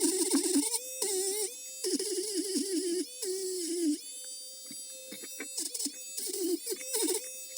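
High-speed rotary tool running with a steady whine. Its pitch sags again and again and then recovers as it is pressed against the rusted knife blade to clean it.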